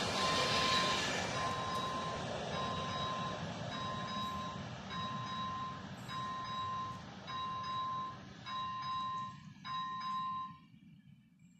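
Level-crossing ZV-01 electronic warning bell ringing a repeating ding about once a second over the fading rumble of a passenger train's last coach rolling past. The bell stops about ten and a half seconds in, once the train has cleared the crossing.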